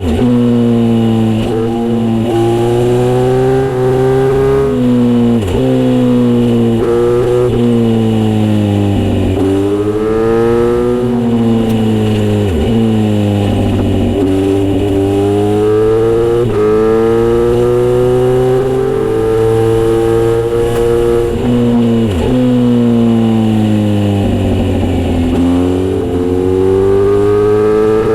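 Kawasaki Z900RS inline-four with a Misty Kintaro short exhaust, ridden hard on a winding road: the engine note falls off repeatedly and then climbs again as it pulls out, every few seconds throughout.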